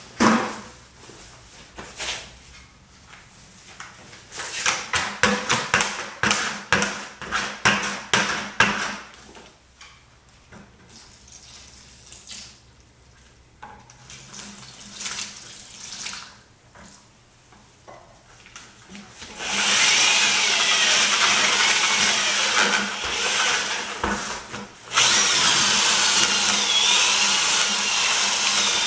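Corded drill with a paddle mixer churning thin-set mortar and water in a plastic bucket. It starts about two-thirds of the way in, stops briefly and starts again, its pitch wavering under the load. Before it come scattered knocks and rattles.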